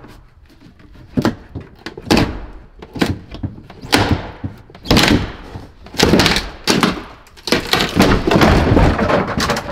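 Wooden upper cabinet in a van conversion being wrenched and knocked loose from the ceiling: a string of heavy wooden thunks and bangs about a second apart, then a longer clattering stretch near the end. It gives way because it was held up by only a few small screws and nails.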